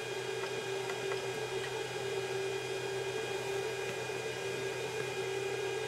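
Steady hum of a powered-on Geeetech I3A Pro 3D printer, with a constant mid-pitched tone. A few faint ticks in the first two seconds come from the control box's rotary push-knob being turned and pressed.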